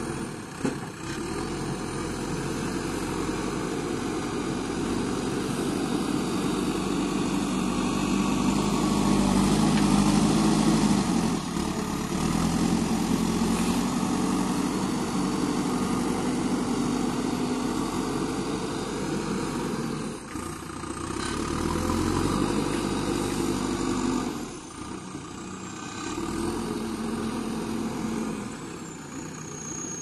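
JCB 3DX backhoe loader's diesel engine running under load as the front loader bucket works soil. The engine note swells about a third of the way in, then eases, and dips briefly a few times later as the load comes off.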